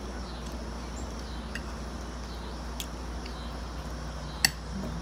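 A metal fork clicking against a dinner plate while eating: three sharp clinks, the loudest near the end, over a steady outdoor background with faint high chirps.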